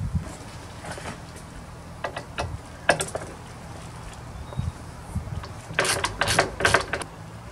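Hand ratchet clicking and clinking as the bolts holding a concrete counterweight on a washing machine's outer tub are undone: scattered clicks at first, then a quick run of four or five rasping strokes about six seconds in.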